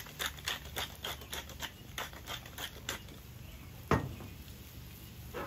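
Pepper mill being twisted over a skillet, grinding peppercorns in short rasping strokes about four a second for about three seconds. A single sharp knock follows about four seconds in, over a low steady hum.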